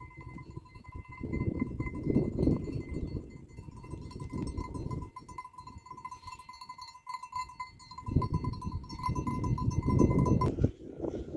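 A herd of goats on the move, with goats bleating, over gusts of wind rumbling on the microphone and a faint steady high tone that stops suddenly near the end.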